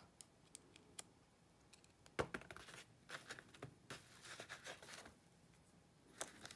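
Faint small clicks and taps of a small machine screw and a round rubber foot being handled, with one sharper knock about two seconds in and a scatter of light ticks after it.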